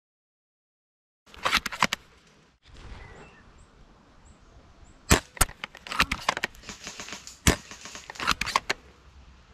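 Sharp snaps and clicks of a VSR-style spring-powered bolt-action airsoft sniper rifle: a quick cluster of clicks about a second and a half in, then a run of loud sharp snaps from about five seconds to near the end, the loudest about five seconds in and again about two and a half seconds later.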